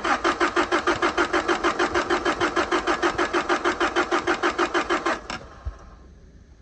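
Starter cranking a Toyota 22R-E four-cylinder engine for about five seconds with an even rhythmic chug. The engine never fires and the cranking stops abruptly: it fails to start because the engine has no spark.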